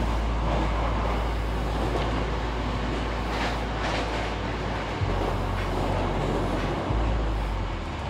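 Running noise of a train heard from inside a carriage: a steady low rumble. About three seconds in, a maroon Hankyu train passes close alongside with a brief rush of sound.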